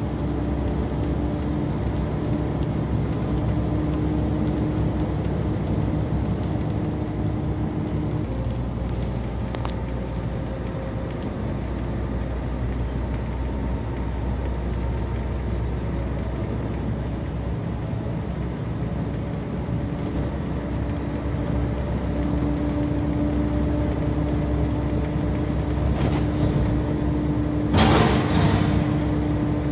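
Heavy vehicle's engine and road noise heard from inside the cab while driving at speed: a steady low rumble with an engine hum whose pitch shifts about eight seconds in and again a little past twenty seconds. A brief, louder rush of noise comes near the end.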